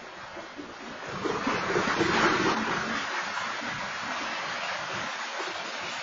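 Freight train cars rolling past on the track: a steady rushing noise of steel wheels on rail, swelling louder from about a second in and easing off again around three seconds.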